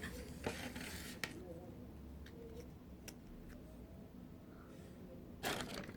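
A few faint, scattered clicks and a short rustle of small plastic toy pieces and packaging being handled, over a low steady room hum.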